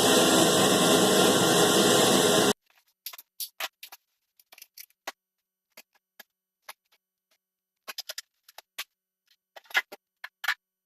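A power saw cutting an opening in the ceiling for a bathroom fan housing runs loudly and stops abruptly about two and a half seconds in. After it come scattered light clicks and knocks.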